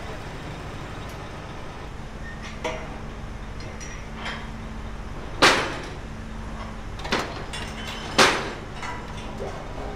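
Metal clangs and knocks from fairground ride parts being handled during assembly, about five in all, the loudest about halfway through and again near the end, each ringing briefly. Under them runs a steady low engine hum.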